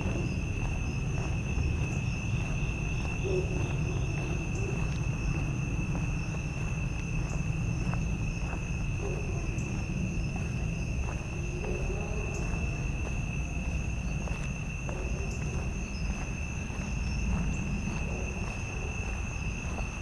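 Steady chorus of crickets and other night insects: a continuous high-pitched trill, with a fainter, higher band above it. A low steady rumble lies beneath.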